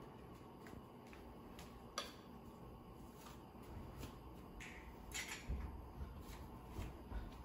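Faint, irregular clicks and taps of kitchen utensils against a bowl and counter, with a sharper click about two seconds in and a few low thuds near the end.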